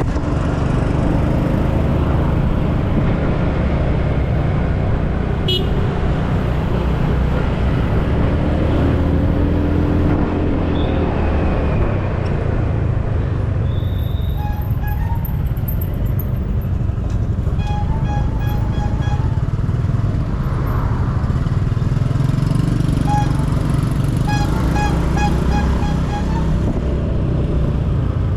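Motorcycle engine running steadily at road speed, with wind rumble on the microphone and passing traffic. In the second half, several runs of short, evenly repeated pitched beeps or music notes sound over it.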